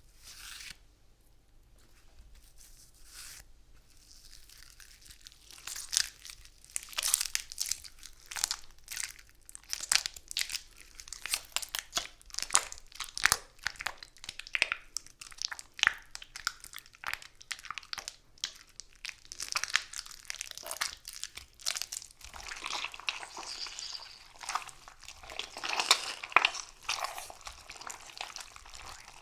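Bananas being torn apart and squashed: quiet for the first few seconds, then a dense run of wet crackling, tearing and squelching sounds.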